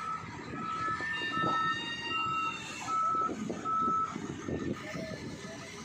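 Wheel loader's reversing alarm beeping about once every three-quarters of a second, the sign that the machine is in reverse, over its diesel engine running; the beeping stops about four seconds in.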